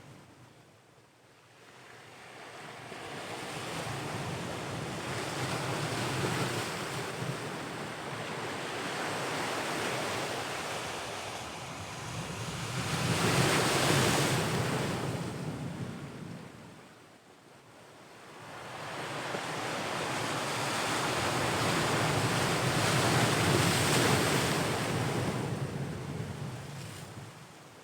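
Ocean waves breaking and washing in, in slow surges: one swells to its loudest about halfway through and dies away, then a long second surge builds and fades near the end.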